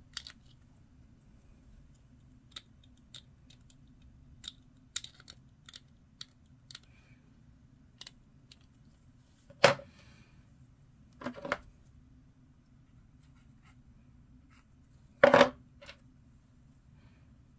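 Hobby knife trimming and scraping the edge of a small plastic miniature part, a scatter of faint clicks and scratches. A few louder knocks sound among them, the loudest about fifteen seconds in.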